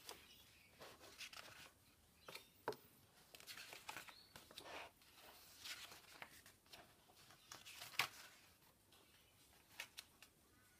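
Faint rustling of magazine pages being turned by hand, with a few short sharp clicks, the loudest about eight seconds in.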